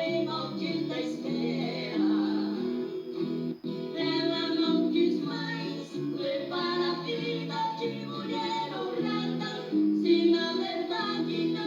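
Sertanejo raiz brother duo singing a song in close two-part harmony, a high first voice over the second voice, with instrumental backing.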